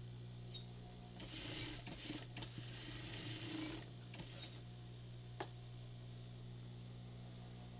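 Sewing machine stitching in a run of about two and a half seconds, broken briefly partway through, over a steady motor hum. A single sharp click follows a little later.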